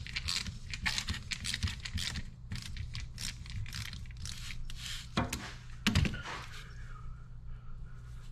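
Hand work on hydraulic cylinder parts: quick scrapes and clicks, then two sharper knocks about five and six seconds in, over a steady low hum.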